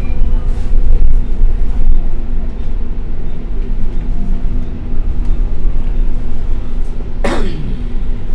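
Bus engine running steadily with road noise, heard from inside the moving bus. About seven seconds in, a short hissing sound falls quickly in pitch.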